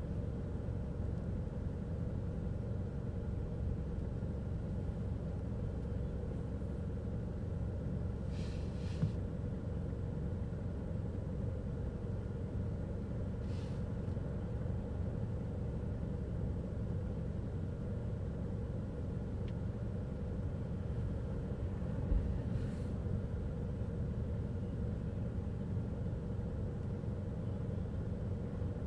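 Steady low rumble of motor traffic, with a faint steady hum. A few brief high chirps come about a third of the way in, near the middle and about three-quarters through.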